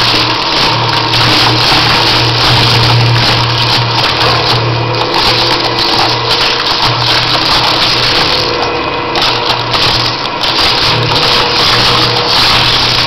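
Twin-shaft industrial shredder running with a steady low hum while its cutter discs crunch and crack CDs, a DVD-R pack and cable.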